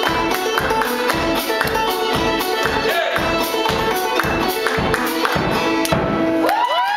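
Clawhammer banjo played with a steady beat of about three strokes a second, ending about six and a half seconds in. Whistles and cheers from the audience start right after.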